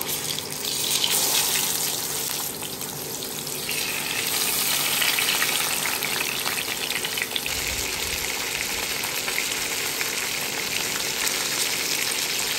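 Spice-rubbed whole fish frying in hot mustard oil in a pan: a dense sizzle with crackling. It swells about a second in, after the fish is laid in the oil, and holds steady from about four seconds in.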